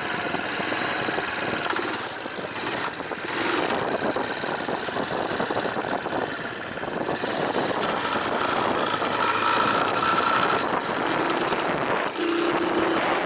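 Dirt bike engine running steadily, with a faint held whine for a couple of seconds past the middle.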